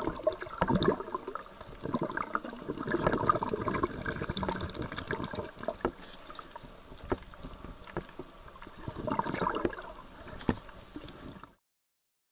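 Shallow water sloshing and gurgling around an underwater camera, in uneven surges with scattered sharp clicks. It cuts off abruptly near the end.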